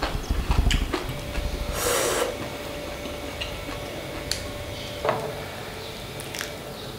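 A person eating soup close to the microphone: chewing, a slurp about two seconds in, and a few light clicks of wooden chopsticks.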